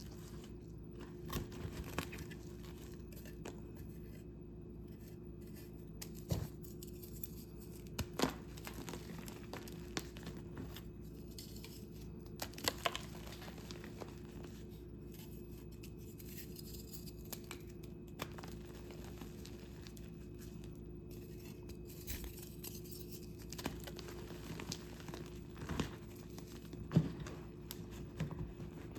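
Gym chalk being crushed and crumbled by hand: irregular dry crunches and crackles, a few of them sharper and louder, over a faint steady hum.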